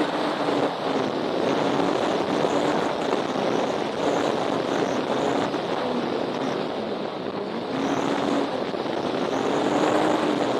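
Radio-controlled model airplane's engine and propeller, its note wavering up and down as it flies, heard through heavy wind noise on the microphone.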